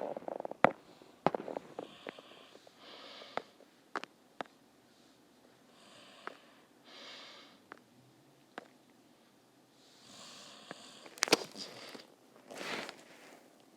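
A person's breathing and sniffing through the nose, with scattered sharp clicks and taps in between.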